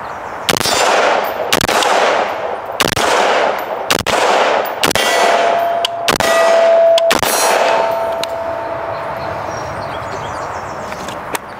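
Semi-automatic AR-15-pattern rifle in .223 Wylde/5.56 firing about seven shots at a slow, steady pace of roughly one a second, each crack trailing off in echo. A steady ringing tone rises through the middle shots and fades a few seconds later.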